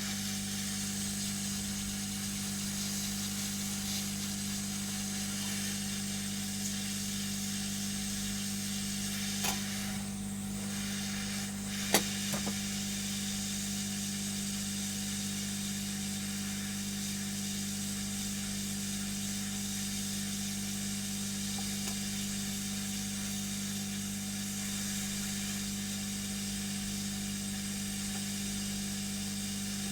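Electric blower running steadily, a constant hum with an airy hiss, with a couple of short sharp clicks about nine and a half and twelve seconds in.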